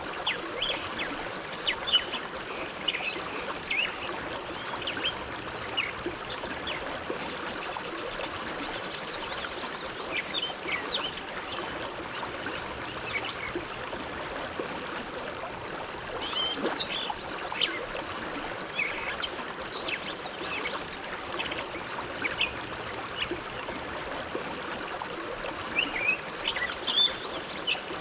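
The Bow River flowing: a steady rush of running water, with many short high-pitched clicks and plips scattered through it in clusters.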